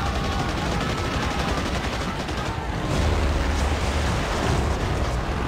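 Battle sound effects from a war-film soundtrack: dense, rapid gunfire over a low rumble, the rumble growing heavier about three seconds in.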